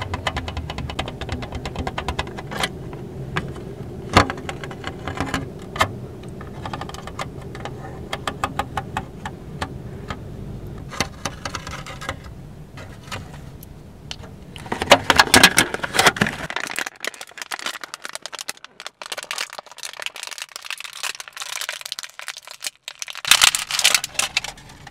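Thin clear plastic clamshell food container handled close to the microphone, giving a run of clicks and crackles, with louder bursts of crinkling about fifteen seconds in and near the end as it is crushed between the hands. A low background rumble cuts off about two-thirds of the way through.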